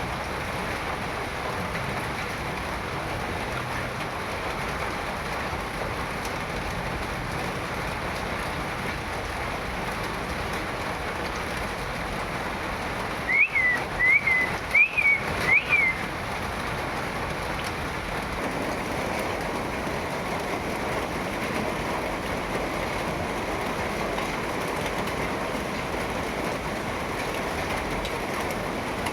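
Steady rain falling, an even hiss throughout, with a bird giving four short, high chirps about halfway through.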